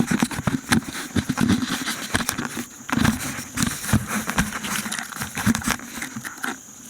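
Handling noise close to the microphone: crackling, rustling and soft knocks as the camera is moved and set in place on a log.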